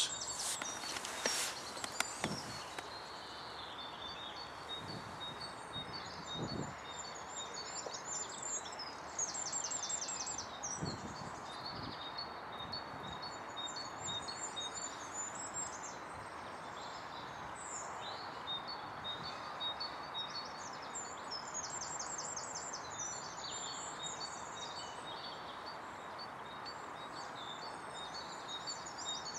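Small songbirds singing repeated chirping and trilling phrases over a steady outdoor hiss, with a few faint knocks in the first dozen seconds.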